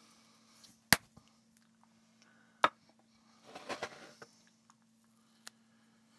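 Hands handling small electronics parts and a foam pad on a wooden tabletop: a sharp click about a second in, a second one a couple of seconds later, then a brief rustle as the foam pad is laid into the open device case, with a few faint ticks afterwards.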